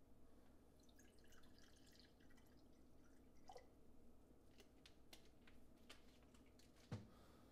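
Liquor poured from a bottle into a glass mug: a faint splashing trickle and a short glug, then a few small clicks and a knock near the end.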